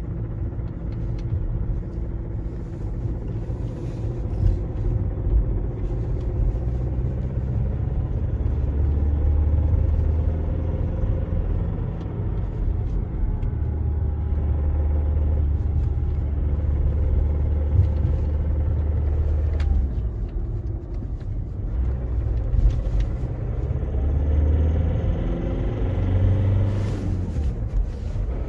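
Audi A3 8P's 1.6 TDI four-cylinder diesel running with a steady low rumble that shifts in pitch now and then. A few sharp knocks stand out above it; this is the knocking sound the car is being recorded for.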